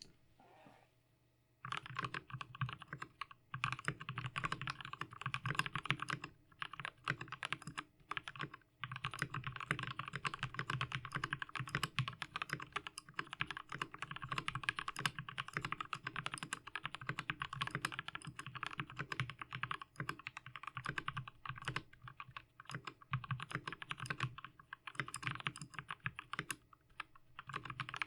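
Fast, continuous typing on a Galaxy 75% full-aluminium mechanical keyboard with lubed Gateron Yellow linear switches, starting about a second and a half in, with a few brief pauses.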